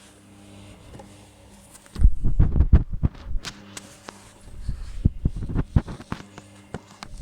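Gorenje front-loading washing machine on its hand wash cycle: the motor hums as the drum turns, and a heavy wet blanket thuds and sloshes inside it in two bouts of low knocking, about two seconds in and again past the middle.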